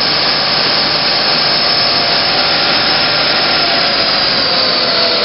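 Spindle of a 1986 Mazak QT20N CNC lathe running at speed in its second gear range: a loud, steady whir with a high whine. Near the end the whine starts to fall in pitch as the spindle begins to slow.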